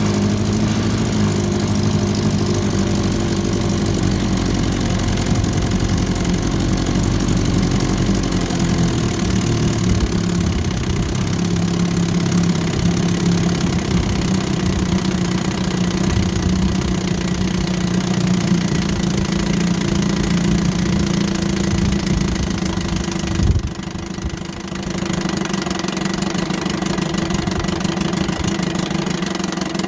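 1954 Johnson QD-15 10 hp two-stroke twin outboard running steadily in a test barrel while it warms up. About 23 seconds in a single sharp knock stands out, the running dips for about a second, then settles again.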